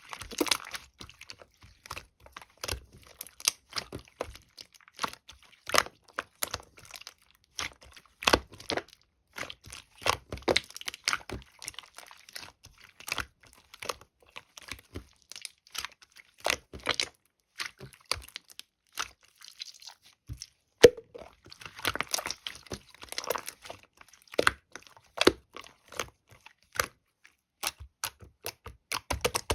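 Clear slime being squished and poked by hand, giving many irregular sharp clicks and pops of trapped air, in quick clusters with short pauses between.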